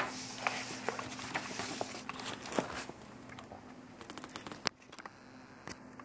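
A sheet of painted paper rustling and crackling as it is handled, busiest for the first three seconds, then a few scattered sharp clicks, over a faint steady hum.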